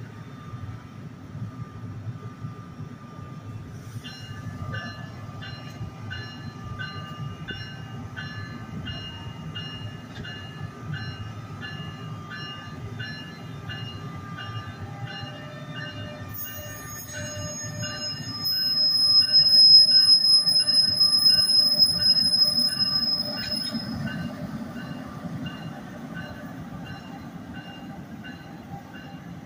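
NJ Transit multilevel commuter train with an ALP-46A electric locomotive rolling slowly past on departure, wheels rumbling low and steady, with a rhythmic pulsing of high tones. Midway a high, steady wheel squeal sets in and becomes the loudest sound for several seconds before dying away.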